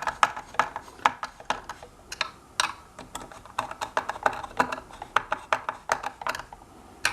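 Light plastic clicks and taps from hands fitting the balance sensor board and its connectors into a hoverboard's plastic shell, an irregular run of about three or four a second.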